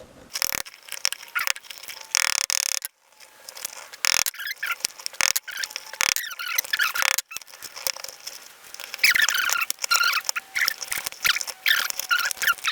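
Metal scraping and high squeaks in irregular spurts as a hand tool works the chrome escutcheon loose from a 1935 Ford door handle. The squeaks are thickest near the end.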